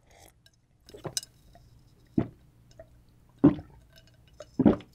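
Close-miked swallowing of water from a glass: four gulps about a second apart, the last two loudest.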